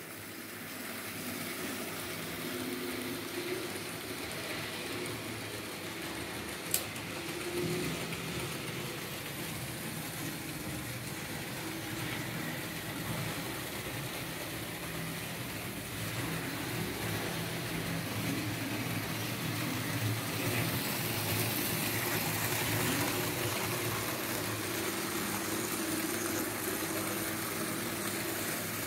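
Märklin H0 model trains running on the layout: a steady electric-motor hum with the rolling clatter of wheels on the track. It grows louder in the second half as the V 200 diesel model and its express coaches pass close by. There is a single sharp click about seven seconds in.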